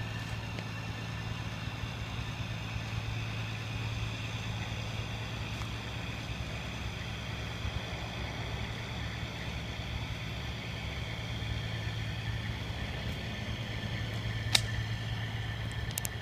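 A diesel truck engine idling steadily with a low, even hum and a faint high whine over it. Near the end comes a single sharp click.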